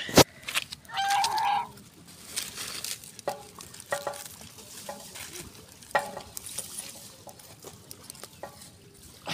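Chickens clucking in short calls over the small ticks and crackles of a wood fire, with one sharp crack a moment after the start.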